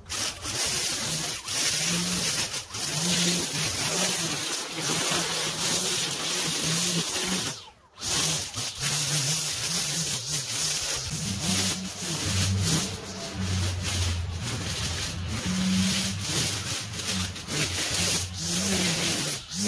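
Gas-powered grass-cutting equipment chewing through tall, overgrown grass, its engine note shifting up and down with the load. The sound drops out briefly about eight seconds in.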